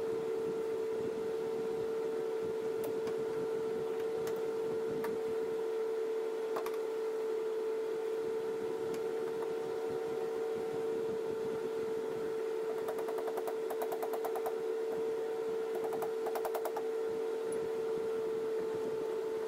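A steady, even hum with a few light clicks, and two short runs of rapid ticking about two-thirds of the way in, from hand work fitting the leaf spring at the golf cart's rear axle.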